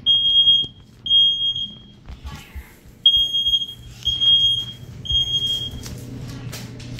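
Household smoke alarm going off with high-pitched half-second beeps in groups of three, each group followed by a short pause. This is the standard three-beep fire evacuation signal, here set off by a fire in the house.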